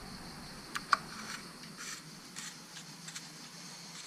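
Faint steady background hiss with two light clicks about a second in and a few softer ticks and scrapes after them.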